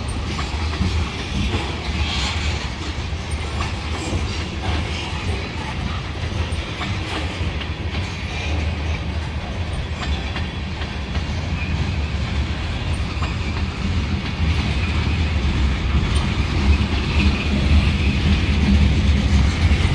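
Freight train cars rolling past, tank cars and then boxcars, with a steady low rumble of wheels on the rails and scattered clicks. The sound grows somewhat louder over the last few seconds.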